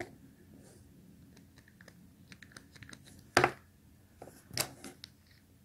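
Plastic shower door rollers handled in the fingers, giving small clicks and taps, with a sharp plastic knock about three and a half seconds in and a few more clicks a second later.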